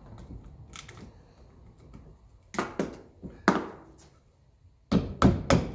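Sharp metallic clicks and knocks of hand tools working a rusted Jubilee hose clip: a few separate knocks, then a quicker, louder run of them near the end.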